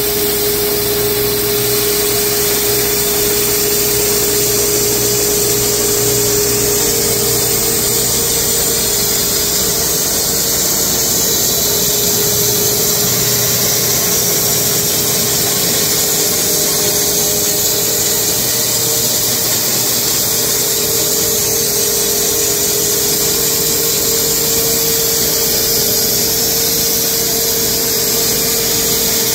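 Wood-Mizer LX250 bandsaw mill sawing through a horse chestnut cant: a steady, even run of motor and band blade in the wood, with the dust collector drawing sawdust through its hose. A steady hum runs underneath and rises slightly in pitch a few seconds in.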